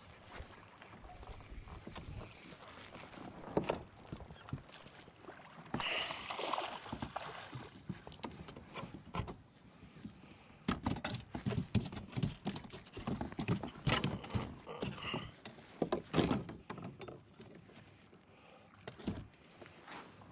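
Irregular knocks and thumps of gear being handled on a fishing kayak, coming thick and fast in the middle of the stretch.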